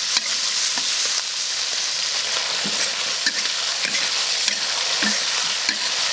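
Oil sizzling in an iron wok as a metal wok spatula scrapes and stirs ginger, pickled chillies and chilli bean paste being stir-fried. A steady hiss with regular scraping strokes of the spatula.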